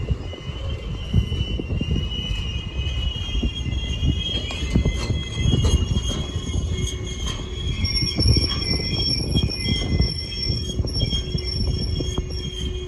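A train running past on the rails, its wheels squealing in several high steady tones that shift in pitch, over a heavy low rumble with scattered clicks.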